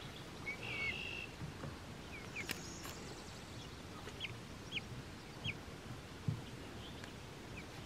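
Young broiler chicks peeping faintly: scattered short, high peeps a second or so apart, with one longer held note about a second in.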